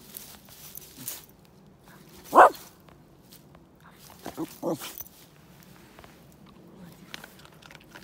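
West Highland white terrier barking: one loud bark about two seconds in, then two shorter barks close together a couple of seconds later.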